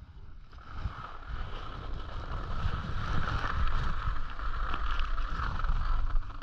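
Wind on a GoPro's microphone: a steady low rumble with a hiss over it.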